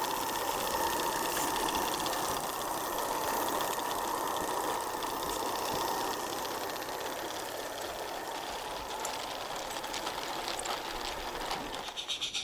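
Live-steam Regner garden-railway locomotive running along the track, a steady hiss and clatter. Near the end a faster rhythmic pulsing sets in.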